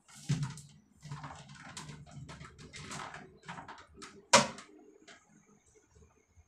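Plastic toilet seat and lid being handled on a ceramic toilet: scattered rubbing and small clicks as the lid is lifted, then one sharp plastic clack a little past four seconds in.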